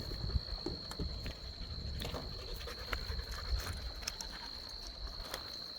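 Footsteps on loose rocky ground, irregular crunches and knocks, over a steady high-pitched insect-like trill.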